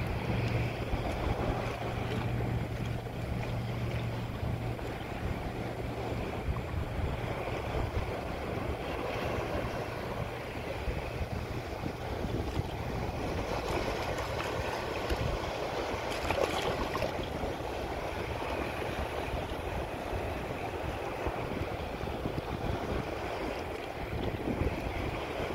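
Choppy open bay water washing and splashing, with wind buffeting the microphone. A low steady hum fades out within the first several seconds.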